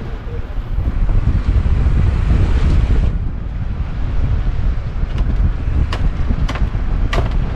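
Heavy low rumble of wind buffeting the microphone on a boat at sea. A hiss over it cuts off abruptly about three seconds in, and a few sharp knocks follow in the second half.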